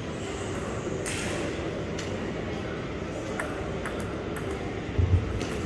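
Table tennis ball clicking off paddles and the table during play: several sharp ticks at irregular intervals over steady background chatter, with a dull low thump about five seconds in.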